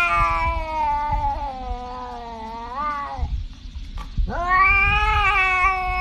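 Tabby cat yowling: one long drawn-out call that wavers and bends upward at its end, stopping about three seconds in. After a short pause, a second long yowl starts with a rising pitch.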